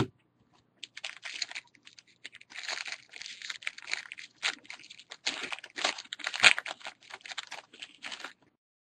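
Baseball trading cards and their pack being handled: a dense run of rustling, crinkling and sharp clicks as cards are slid and flicked through. It stops shortly before the end.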